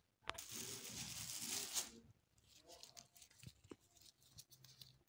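Rose petals rustling as they are handled and scattered, a rustle of about a second and a half starting with a click just after the start. A few faint light taps follow.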